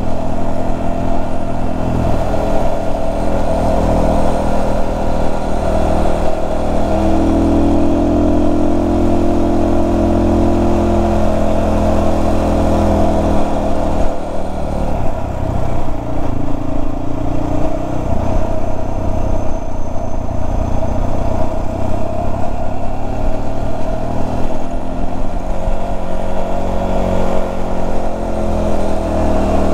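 Motorcycle engine running while riding along a road, its note shifting up and down in pitch through the middle of the ride.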